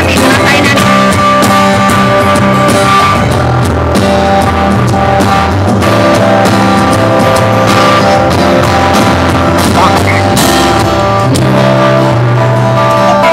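Rock music with guitar and drums playing at a steady, loud level.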